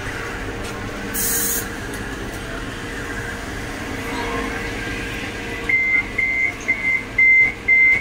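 Edinburgh tram's door-closing warning: a run of short, even beeps at one high pitch, about two a second, starting near the end. Beneath it is the steady hum of the standing tram, with a brief hiss of air about a second in.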